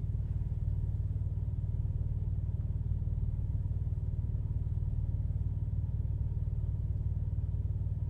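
Steady low rumble of a Ford F-150 pickup idling, heard from inside the cab.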